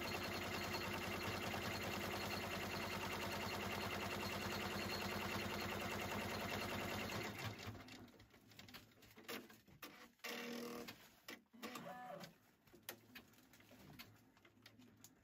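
Embroidery machine stitching at a fast, steady rhythm, then stopping abruptly about seven seconds in. Scattered clicks and a brief low pitched sound follow.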